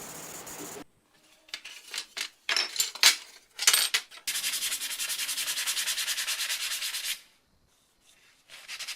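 A short hiss at the very start, then a few separate scraping strokes. About four seconds in, a steady run of rapid back-and-forth rubbing strokes, as in hand sanding or scrubbing a metal part, lasts about three seconds and cuts off abruptly; a brief burst of the same rubbing comes near the end.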